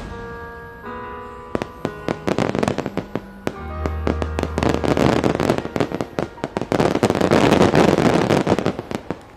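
Aerial fireworks bursting, with sharp pops that grow into a dense, loud crackle over the last few seconds, over music with sustained notes.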